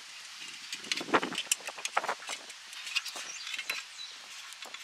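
Wire cutters snipping plastic zip ties off a bundle of wires, a scatter of small sharp clicks and snips with some light rustling of the wires.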